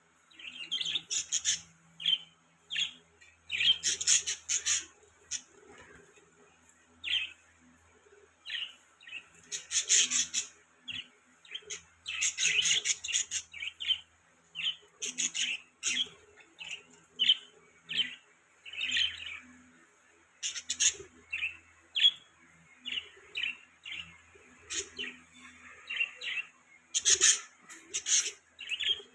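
Budgerigar (budgie) chirping: a steady run of short, quick chirps broken every few seconds by bursts of rapid chattering notes.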